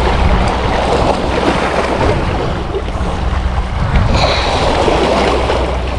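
Wind buffeting the microphone, with a steady rush of seawater washing against the rocks of a breakwater.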